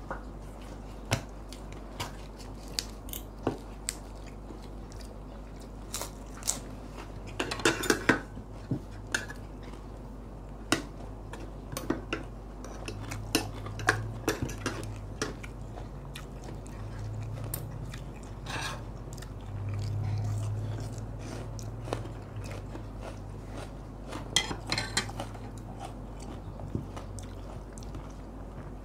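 Spoons and forks clinking and scraping on plates and bowls, with chewing. The clinks come in clusters about eight seconds in and again near the end, and a low hum comes and goes in the middle stretch.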